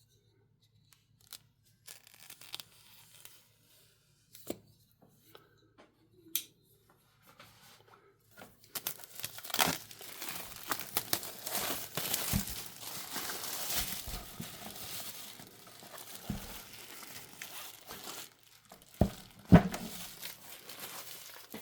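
Wrapping being torn and crumpled off a book's slipcase. At first there are only scattered small clicks of handling, then about ten seconds of continuous tearing and crinkling, ending with a few sharp knocks.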